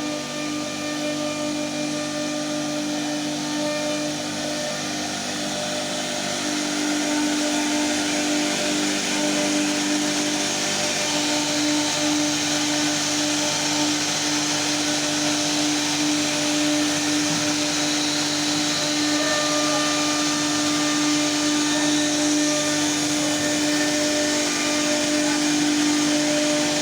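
CNC router spindle running steadily while cutting wood: a constant whine over an even hiss that barely changes.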